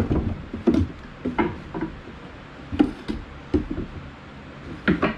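Wooden planter boards knocking and clacking against each other and the bench as they are handled and slid into place: a series of irregular sharp knocks.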